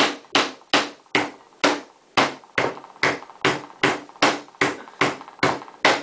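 The chisel blade of a hammer multi-tool chopping down again and again into a wooden stick on a wooden board: sharp knocks at an even pace, about two and a half a second.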